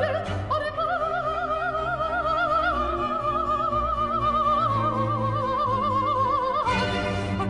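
Operatic mezzo-soprano holding one long note with wide vibrato, sinking slightly in pitch, over a chamber string orchestra's sustained low strings. Near the end the held note gives way to a fuller burst from the ensemble.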